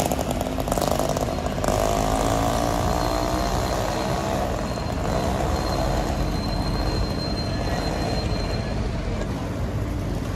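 City street traffic: a passing vehicle's engine hums with a slowly falling pitch over steady street noise, and a thin high whine runs through the middle.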